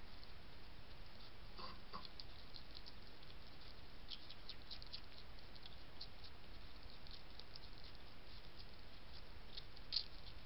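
European hedgehog crunching dry kitten-food kibble from a plate, a steady run of small irregular crunches and clicks, with one louder click near the end.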